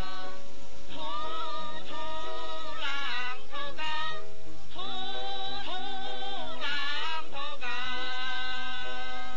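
Film soundtrack music: a slow melody of long held notes that slide from one pitch to the next, singing-like in tone.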